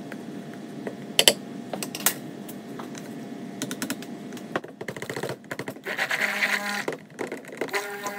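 A few sharp clicks of plastic containers and tools being handled, then an electric stick blender running in short bursts in a plastic pitcher of cold-process soap batter, blending in orange colorant.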